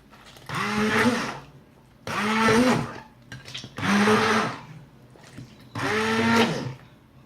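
Electric blender run in four short pulses, each under a second, its motor whining up to speed each time, pureeing fried zucchini into a mash.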